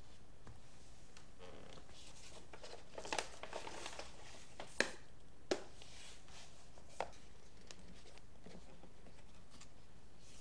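Rustling and handling of a cardboard box as its lid is taken off, with three short sharp clicks or taps about five, five and a half and seven seconds in, the first the loudest.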